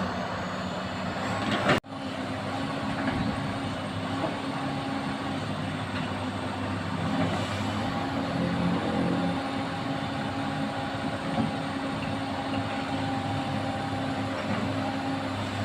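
Komatsu excavator's diesel engine running steadily, with a constant hum. The sound drops out for an instant about two seconds in.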